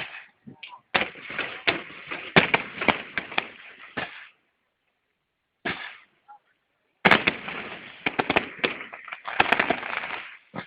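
Fireworks display: salvos of bangs and crackles in four clusters with short pauses between, the longest and densest about a second in and again about seven seconds in.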